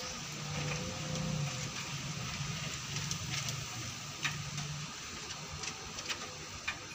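Wood fire in a native kalan crackling under a cooking pot: a steady hiss with scattered sharp pops and snaps. A low hum sits underneath for the first five seconds or so, then fades.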